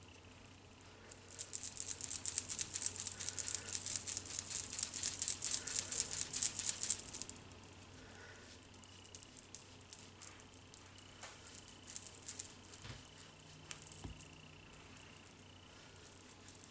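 A makeup brush's bristles working gray contour powder. For about six seconds there is fast, dense scratching, then softer, sparser brushing strokes on the cheek.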